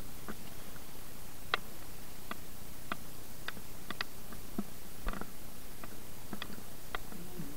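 About fifteen light clicks and taps at irregular intervals over a steady hiss, with a duller knock about five seconds in, like small hard objects being moved and knocked together.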